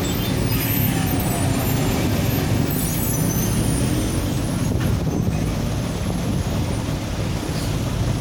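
Steady low rumble of engines or vehicle traffic, with a few faint sliding whines in it.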